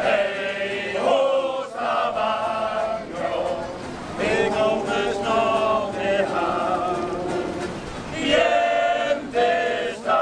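A choir of several voices singing together in long held phrases, with short breaks between the phrases.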